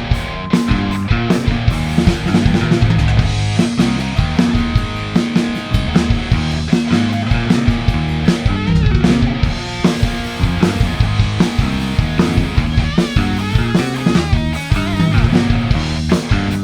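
Rock band playing live, an instrumental passage with electric guitar and drum kit keeping a steady beat, no singing.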